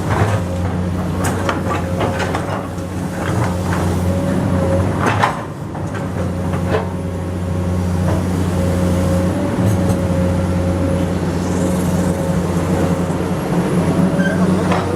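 Komatsu PC200 hydraulic excavator's diesel engine running steadily under work, with a steady whine above the engine hum. Scattered knocks and clanks come through, the strongest about five seconds in.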